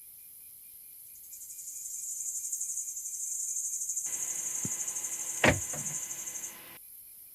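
Night insects, crickets and katydids, chirring high and steady; a louder, rapidly pulsing chirr swells in about a second in and stops about six and a half seconds in. A sharp click sounds about five and a half seconds in, over a brief wider noise.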